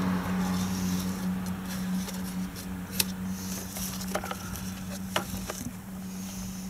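Hard plastic air-intake box parts being handled and set down, giving a few light clicks and knocks, the sharpest about three seconds in, over a steady low hum.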